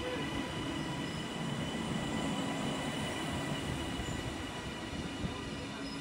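TransPennine Express multiple-unit passenger train rolling past along the platform: a steady rumble of wheels on rail with a faint steady whine above it.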